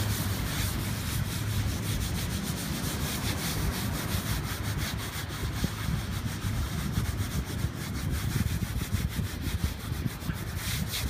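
Hands rubbing damp sand into raw selvedge denim jeans: a continuous gritty scraping of sand against the fabric, made of many small scratchy strokes. This is the sand scrub that scuffs the denim to bring out fades and whiskers.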